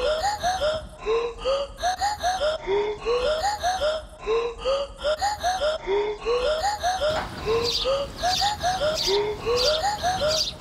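Background music: a playful track whose lead repeats a phrase of short upward-sliding notes over light, even percussion.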